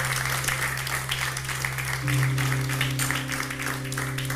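Applause over an intro music jingle, with held notes coming in about two seconds in.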